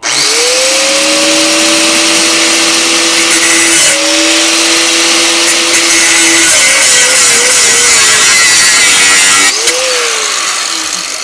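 Handheld power tool spinning up and running loud and steady under load for about nine and a half seconds, its motor pitch wavering as it bites, then stopping with a brief blip of the trigger; it is working a broken exhaust bolt out of the car.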